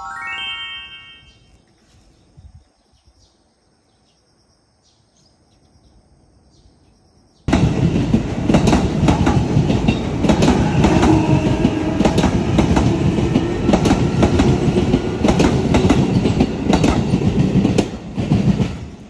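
A commuter train passing right beside the track: a loud rushing roar of wheels on rail, studded with clicks from the rail joints, starting abruptly about seven seconds in and dropping away near the end. A brief ringing tone sounds at the very start, then it is quiet until the train arrives.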